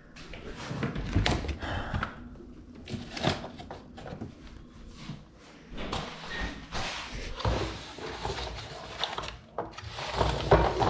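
Irregular knocks, thuds and clatter of kitchen cupboards and drawers being opened and shut, with a louder bang near the end.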